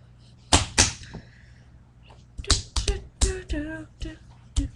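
Sharp hand slaps: two about half a second in, then a quick run of slaps and taps in the second half, mixed with short wordless vocal sounds.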